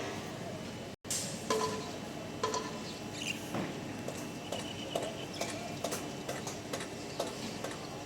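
Construction site work sounds: irregular knocks and clanks, some ringing briefly like struck metal, with a brief cut-out about a second in.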